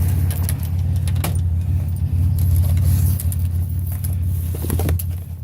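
Steady low rumble of an idling motor vehicle, with a few light metallic clinks and rattles from scrap being handled, about a second in and again near the end.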